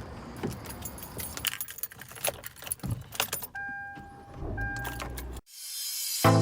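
Keys jangling, with scattered clicks and knocks. Then come two short, steady electronic beeps, a little apart. Near the end a rising whoosh leads into music.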